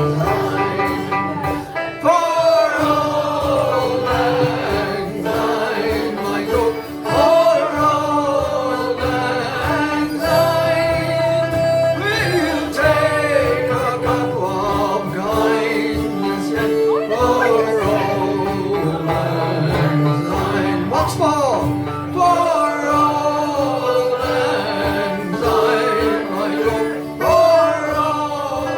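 Live folk band playing a song with male singing over strummed acoustic strings, with a steady held tone underneath.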